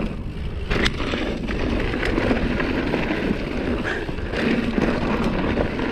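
Mountain bike ridden fast down a dirt jump line: a steady rush of wind and tyre noise, with a sharp knock from the bike about a second in.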